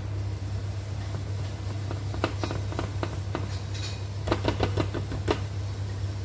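Wire whisk stirring flour and water in a glass mixing bowl, its wires clicking against the bowl in two bunches of quick taps, over a steady low hum.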